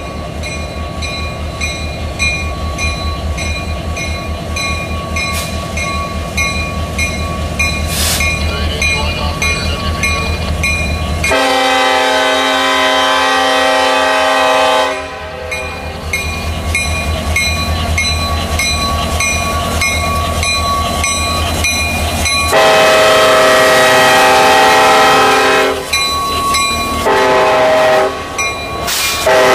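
CSX SD70ACe diesel locomotives approaching and passing, the engines rumbling steadily under a regular clicking from the wheels on the rails. The air horn sounds a chord of several notes in a long, long, short, long pattern, the grade-crossing signal: the first long blast about eleven seconds in, the second about twenty-two seconds in, then a short blast and the last long one starting just before the end.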